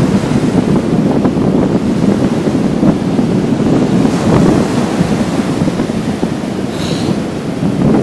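Small waves of the Black Sea breaking and washing up a sandy shore in a steady rush of surf, with wind buffeting the microphone.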